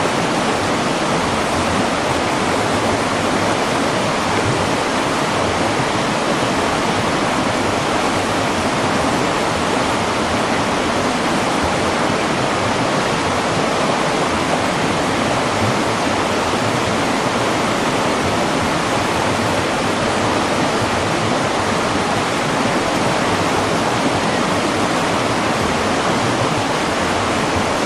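Floodwater rushing down a street in a downpour: a loud, steady rush of water.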